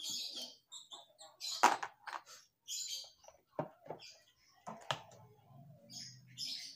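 Screwdriver working the screws of a Honda Vario scooter's air filter housing: scattered clicks and scrapes of metal on plastic, the sharpest click about one and a half seconds in.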